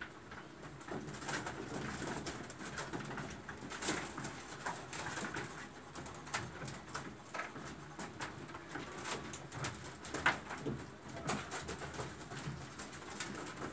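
Graphite pencil scratching on paper in short, quick shading strokes, with a bird cooing in the background.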